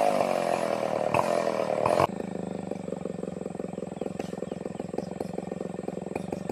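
Two-stroke chainsaw cutting under load, its engine speed sagging as the bar bites into the hardwood. About two seconds in, the throttle is released and the saw drops abruptly to a steady, evenly pulsing idle.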